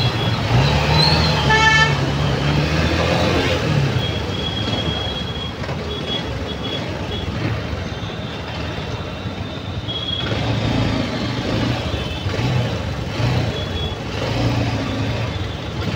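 Dense road traffic heard from a moving motorbike: engines running steadily, with horn toots sounding on and off. One horn holds a high note for about a second and a half some four seconds in.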